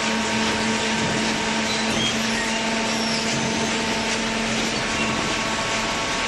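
Hydraulic waste paper baler running: a steady machine drone with a constant low hum through it.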